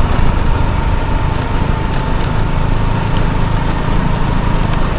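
Motorcycle engine running steadily while riding along, with a steady high-pitched whine above it.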